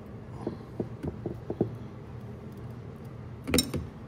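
Hand tools working a bolt in an engine bay: a run of light metallic clicks in the first second and a half, then a louder clank near the end.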